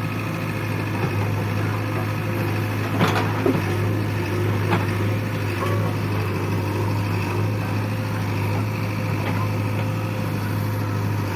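JCB backhoe loader's diesel engine running steadily, with a few sharp knocks about three to five seconds in.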